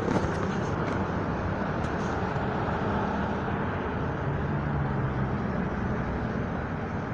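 Road traffic passing: a steady rumble of vehicle engines and tyres, with a low engine hum rising a little about four seconds in.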